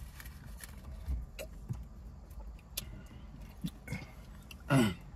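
Sips and swallows from a plastic drink bottle, a few small clicks, over a steady low hum inside the car. Near the end comes one short hummed vocal sound, falling in pitch, as the drink is tasted.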